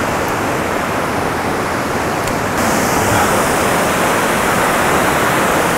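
Steady rushing of a river rapid, water pouring over and around boulders. It grows a little louder and hissier about two and a half seconds in.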